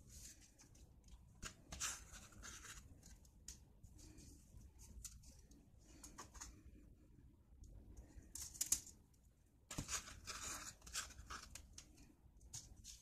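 Aluminium foil crinkling and rustling as small spice-coated fish are handled and laid on a foil-lined baking tray. It comes in short scattered bursts, the loudest about two-thirds of the way in.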